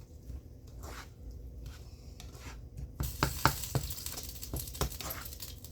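A spoon stirring seasoned ground beef in a frying pan, with scattered clicks and scrapes against the pan. About three seconds in, the stirring gets busier and a sizzling hiss comes up.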